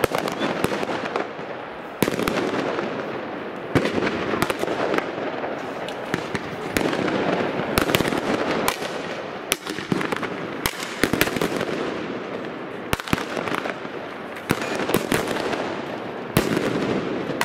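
Fireworks going off in rapid succession: many sharp bangs at irregular intervals over a continuous crackle.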